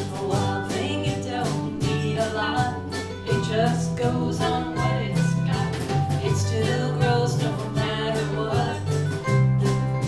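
Live country-folk band: a woman singing lead over strummed ukuleles and acoustic guitar in a steady rhythm, with bass guitar underneath.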